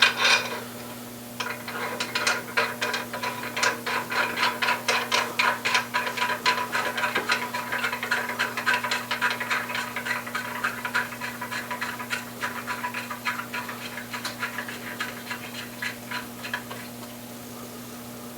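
Hand ratchet clicking in a long run of quick, even strokes, running down the main bearing cap bolts over a freshly installed crankshaft; the clicking starts about a second and a half in and dies away near the end.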